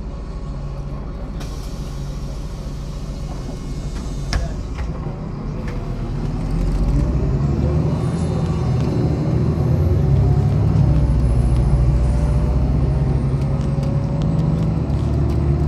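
Diesel engine of a MAZ-103 city bus heard from inside the cabin, running steadily, then growing louder about six seconds in as the bus pulls away and speeds up, with the engine note rising. A single sharp click sounds a few seconds in.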